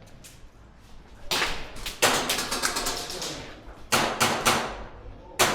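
Airsoft guns firing in quick strings of sharp cracks: a run starting about a second in, another around four seconds, and a third near the end.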